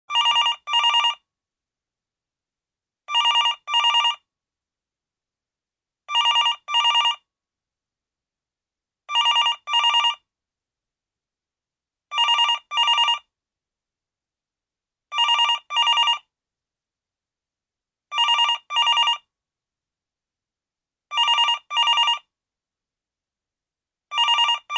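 Telephone ringing in a double-ring pattern: two short rings, then a pause, repeating about every three seconds.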